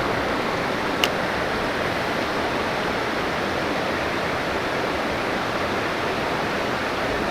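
Creek water rushing steadily, an even hiss of flowing water. A single short click about a second in.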